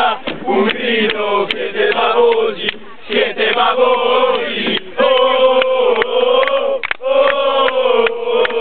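A group of men chanting a supporters' chant in unison inside a coach, with long held notes in the second half and sharp hits scattered between phrases.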